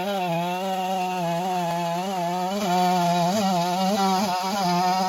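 Chainsaw in a chainsaw mill ripping a log into lumber, its engine held at a steady high pitch that wavers slightly. It gets a little louder about two and a half seconds in.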